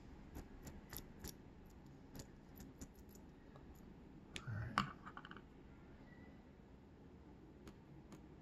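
Faint, scattered small metal clicks and taps as the pins and brass plug of a Goal P pin tumbler lock are handled and laid into an aluminium pin tray. A short, slightly louder cluster of clicks comes about halfway through.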